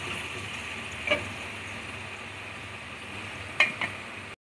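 Small potatoes sizzling in hot mustard oil in an aluminium pressure cooker, with sharp metal clinks about a second in and twice more near the end as they are scooped out with a slotted spatula. The sound cuts off suddenly just before the end.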